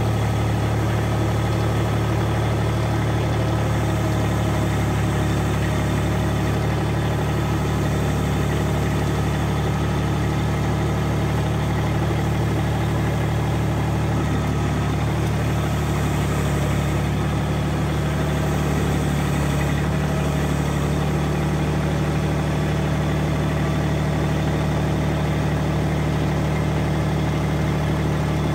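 Compact tractor's diesel engine running steadily, its note shifting slightly about halfway through.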